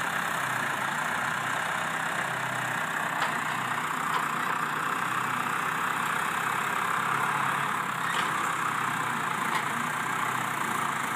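John Deere farm tractor's engine running steadily at a low, even speed, with a few faint ticks over it.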